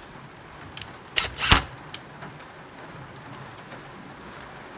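A cordless drill-driver run in two short bursts, the second louder, about a second and a half in, driving screws into the saw's housing.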